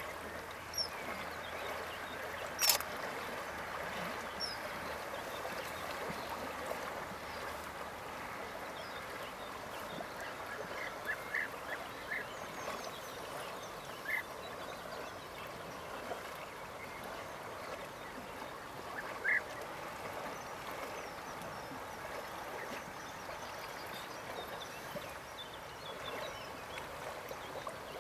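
Steady background hiss with a sharp click about three seconds in, and a handful of short bird calls scattered through the middle.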